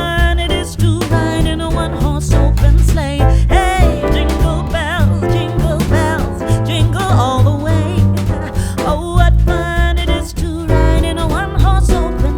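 Background music: a song with a singing voice over instruments and a steady bass line.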